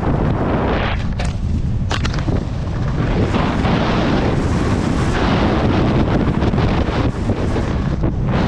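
Wind buffeting the microphone of a camera carried by a skier going fast downhill, a loud steady rush that starts abruptly, mixed with skis scraping over the snow and a few sharp clicks.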